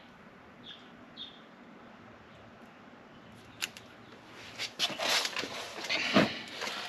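Hands handling and smoothing a vinyl decal on a brake caliper: faint rustling and light clicks in the second half, with a louder rustle and thump about six seconds in. A couple of faint bird chirps near the start.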